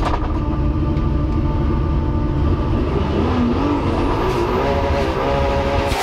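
Twin turbocharged VR6 engines of a twin-engine Volkswagen Golf drag car running loud between burnouts. The engine pitch dips and climbs about halfway through.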